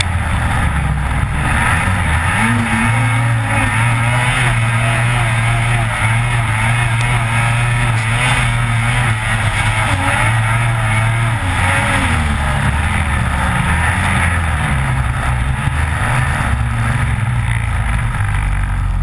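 Lynx Rave RE 600 snowmobile's two-stroke engine running at speed along a trail, loud and continuous, its pitch rising and falling as the sled rides.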